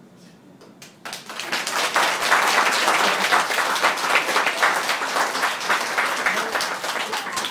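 Guests clapping: applause breaks out about a second in and carries on as a dense, loud patter of many hands, starting to thin near the end.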